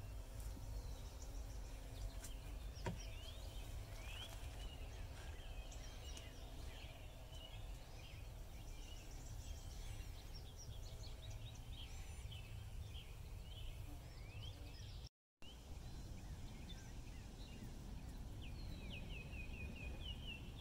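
Several small birds chirping and calling over a steady low rumble of outdoor background noise, with a quick run of short falling chirps near the end. The sound cuts out completely for a moment about three quarters of the way through.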